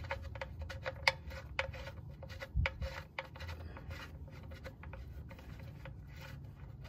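Oil drain plug being threaded by hand into a Ram EcoDiesel's oil pan: a run of small irregular clicks and scrapes from the plug threads and fingers, the sharpest about a second in, over a low steady rumble.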